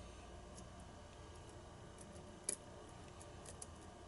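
Faint, scattered clicks of lock picks working the pins of an ASSA Abloy challenge lock cylinder, with one sharper click about two and a half seconds in. The picker is trying to regain a false set.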